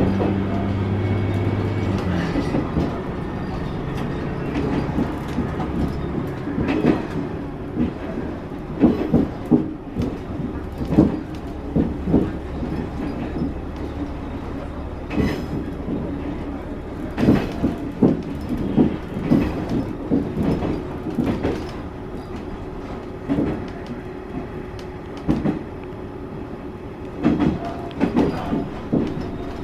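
Diesel railcar running along the line: a steady engine hum drops away after about two seconds, then the wheels clack over rail joints in irregular groups of clicks.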